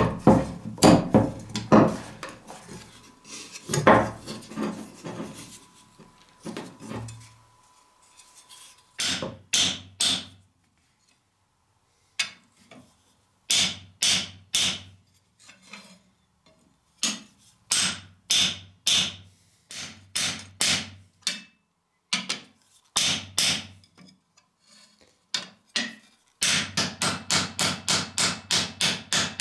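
Small hammer striking copper tube rivets against a steel anvil to flare and set them through the wooden handle scales of a cleaver: sharp metallic taps in short groups, then a fast run of about four a second near the end. Irregular knocks and rubbing in the first few seconds as the scales are worked down over the pins.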